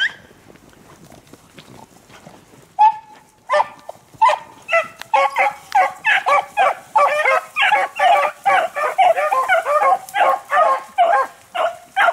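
A pack of beagles baying on a rabbit's scent. One or two hounds open about three seconds in, then the rest join in a continuous chorus of overlapping bays.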